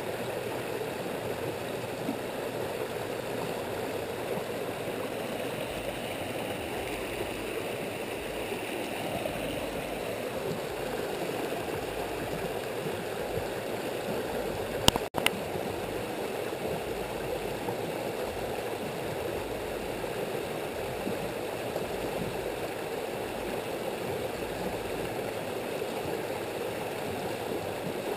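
Shallow rocky stream running over riffles: a steady rushing of water, with one sharp click about halfway through.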